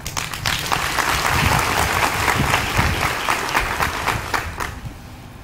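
Large audience applauding, a dense burst of clapping that dies away about five seconds in.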